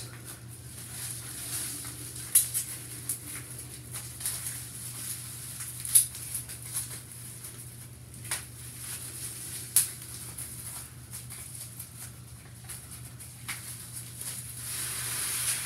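Unpacking noises: packaging rustling and a small music-stand part being handled, with a few sharp clicks and knocks, the loudest about six seconds in, over a steady low hum.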